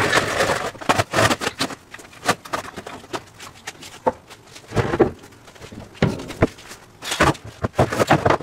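A wooden bench frame and boards being handled and set up: a rapid, irregular series of knocks and clunks of timber against timber and the floor.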